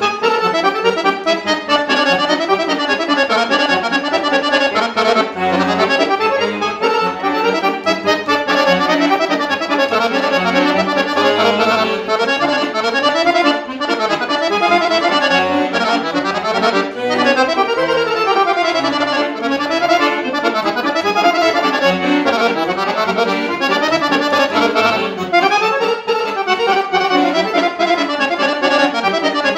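Guerrini piano accordion playing a kolo dance tune solo: quick runs of notes rising and falling on the right-hand keyboard over bass notes from the left hand.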